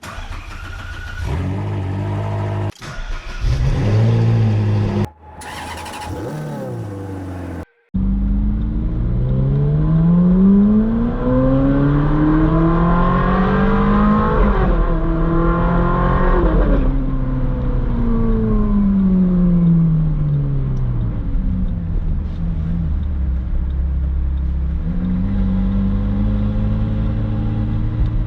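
Ferrari 458 Spider's V8 through a Brilliant aftermarket exhaust. It comes first in a few short cut-together snatches, then as one continuous run. The revs climb steadily for several seconds, hold briefly, fall away over several seconds to a low steady note, and begin climbing again near the end.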